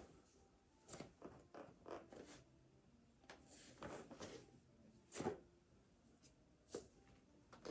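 Soft rustling of clothing and a mat in short, irregular bursts about a second apart, the sound of a person moving through full prostration bows; the loudest burst comes about five seconds in.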